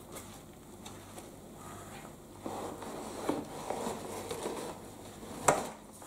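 Rustling and crinkling of a full vacuum dust bag being handled and lifted out of a plastic vacuum tub, with a single sharp knock near the end.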